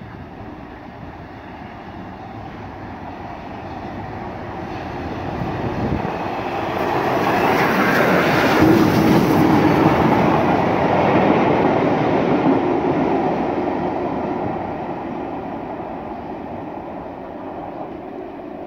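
Two main-line steam locomotives running light together at speed, LNER A4 Pacific 60009 Union of South Africa and Southern Railway Merchant Navy class 35018 British India Line, pass close by. The sound builds as they approach, is loudest about eight to twelve seconds in as they go past, and then fades as they draw away.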